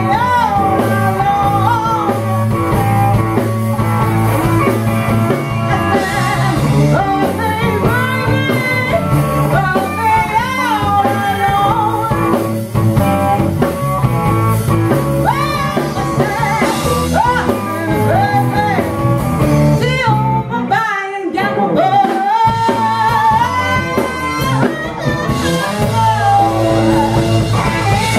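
A live blues and rock'n'roll band plays: a woman sings lead into a microphone over electric guitar, bass and drum kit. About two-thirds of the way through, the band cuts out for a couple of seconds while her voice carries on, then the band comes back in.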